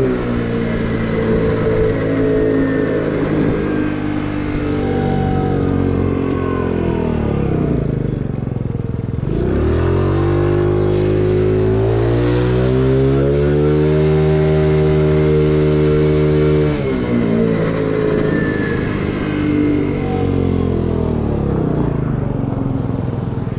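The stock 49cc GY6 single-cylinder four-stroke engine of a Ruckus-clone scooter under way. Its note falls away over the first nine seconds as it slows, then climbs quickly under throttle. It holds steady for a few seconds and drops off again about seventeen seconds in, settling lower.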